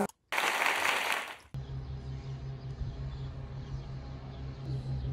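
About a second of rushing wind and road noise from a moving car. After that comes a steady low engine hum with a faint pulse.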